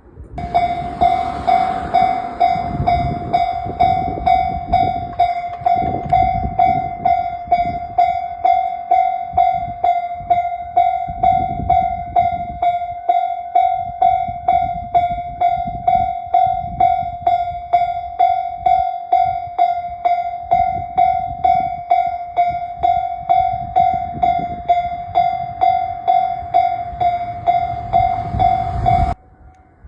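Japanese level-crossing warning bell ringing in a steady, even rhythm of about two strikes a second. It breaks off abruptly near the end.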